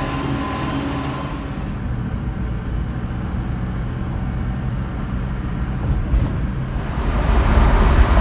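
John Deere 5100 tractor engine running steadily for about the first second and a half, then the cab of a pickup truck towing a loaded round-bale trailer: low engine and road rumble that grows louder near the end.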